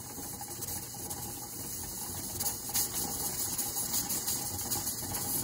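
Steam hissing from the weighted pressure control on the vent of a Mirro 22-quart pressure canner, growing louder, with a light rattle as the weight starts to rock. The control is set for 15 pounds, and a jiggle three to four times a minute is the sign that the canner is holding that pressure.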